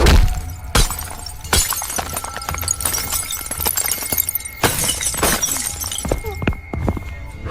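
Glass breaking: a loud crash right at the start, then several more crashes with a spray of small crackling bits between them.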